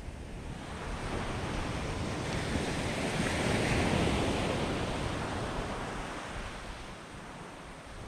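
Small waves breaking on a sandy beach: a wave breaks and washes up the sand, the surf swelling to its loudest about halfway through, then easing off as the water draws back.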